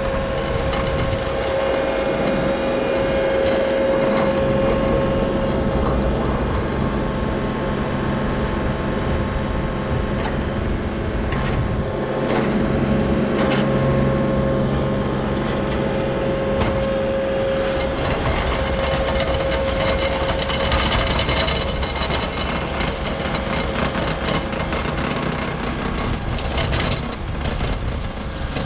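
ASV RT40 compact track loader's diesel engine running under load, with the hydraulic Harley power rake's spinning toothed drum grinding and rattling through dry soil, over a steady whine. It is loudest as it passes close about halfway through, then moves off.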